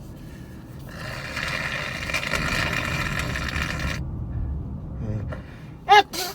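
A person giving a congested, allergy-inflamed nose one big hard blow: a noisy rush with a pitched edge, lasting about three seconds and stopping abruptly. Near the end comes a brief, loud voiced sound.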